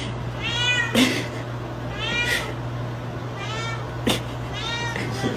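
A cat meowing repeatedly, four arching calls, with a couple of sharp knocks and a steady low hum behind.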